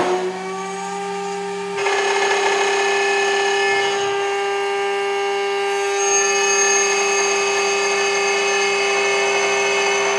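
High-speed air-cooled spindle motor of a CNC lock-hole milling machine whining at a steady high pitch, its pitch just finishing its rise as it reaches speed near the start. About two seconds in it grows louder and rougher as the end mill starts cutting into the aluminium door profile.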